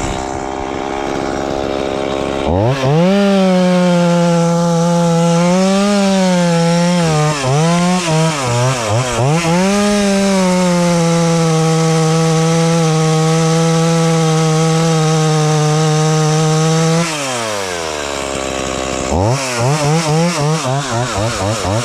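Stihl chainsaw idling, then revving to full throttle and cutting through a thick tree limb, its pitch dipping a few times as the chain loads in the wood. Near the end it drops back to idle, then is revved in quick throttle blips.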